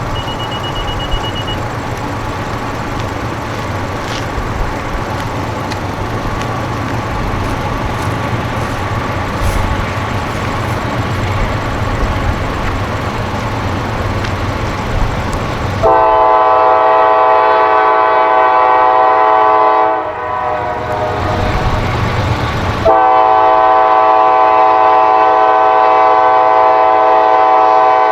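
Approaching GE diesel-led freight train running with a steady low rumble. About 16 seconds in, the lead locomotive's raised-letter Nathan K5LA five-chime horn sounds a long blast. A second long blast follows about three seconds later and runs past the end.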